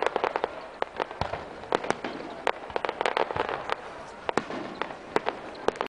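Aerial fireworks going off: an irregular series of sharp cracks and bangs, several coming in quick clusters.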